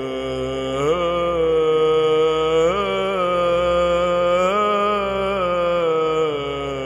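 Orthodox church chant: a single chanting voice holding long notes, with slides up and down between them.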